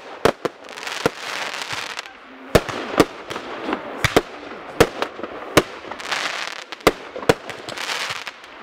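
Aerial fireworks bursting: about a dozen sharp bangs at irregular spacing, with a crackling hiss of burning stars between them.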